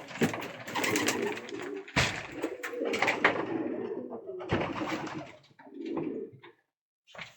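Domestic pigeons cooing in a loft, a chorus of overlapping low throbbing coos, with scattered sharp clicks. The sound drops out briefly near the end.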